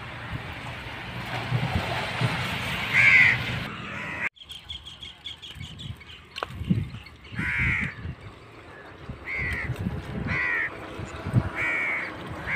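Crows cawing: single harsh caws, one about three seconds in and then a run of five more, spaced a second or two apart, over a low rustle.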